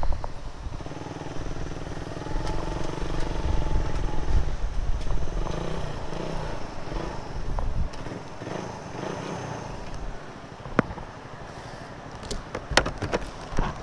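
Motorcycle engines running at low revs, their pitch wavering as they idle and pull away. A few sharp knocks come near the end.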